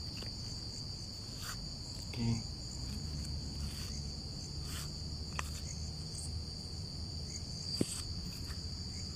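Crickets trilling in a steady, unbroken high-pitched chorus, with a few faint ticks.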